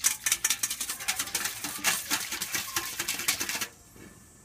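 Wire whisk beating hot water and dissolving guar gum in a stainless steel bowl, its wires clicking and scraping rapidly against the metal; the whisking stops near the end.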